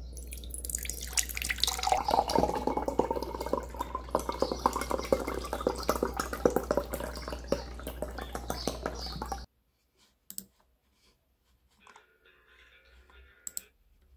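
Coconut water with jelly pieces poured from a can into a clear plastic cup: a gurgling, splashing pour that cuts off suddenly about nine and a half seconds in. A faint clink of dishes follows near the end.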